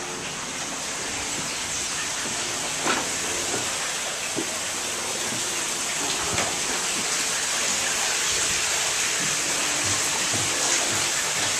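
Steady rush of flowing water that grows slowly louder, with a few faint knocks.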